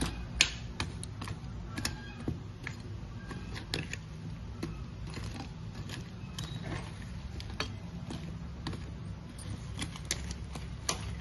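Steel spoon clinking and scraping against a steel bowl while stirring oily fish pickle: irregular light clicks over a low steady hum.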